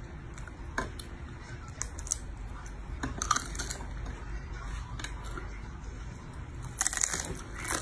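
Crab shell cracking and crunching between teeth as crab is eaten: scattered short cracks, with the loudest crunch near the end, over a steady low hum.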